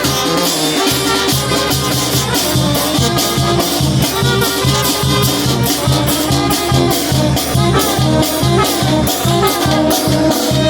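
Oaxacan brass band playing a lively tune: brass melody over a stepping bass line, with percussion keeping a steady beat.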